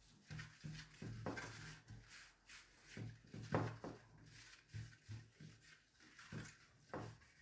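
A hand rubbing oil over a metal baking tray: a run of irregular, soft rubbing strokes.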